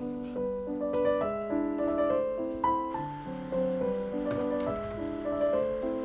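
Background music: a gentle solo piano melody with accompanying chords, notes changing every half second or so.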